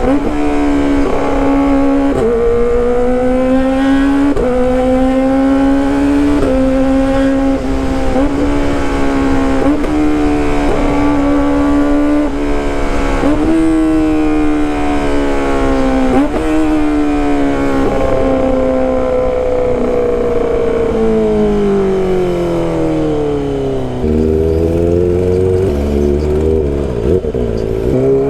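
Kawasaki ZX-25RR's 250 cc inline-four with a loud exhaust, ridden hard: the engine note climbs and snaps down again every second or two, then the revs fall away steadily and pick up again near the end.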